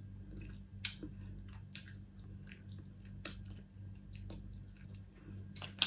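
Close-miked chewing of crab in sauce: wet, squishy mouth sounds with a few sharp clicks of lips or shell. A steady low electrical hum sits underneath.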